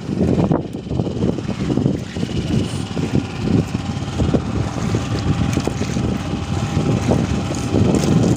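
Small engine running steadily at idle: a continuous low rumble with a faint steady whine.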